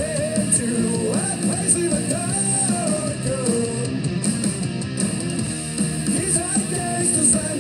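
Rock song with guitar playing over a steady band backing.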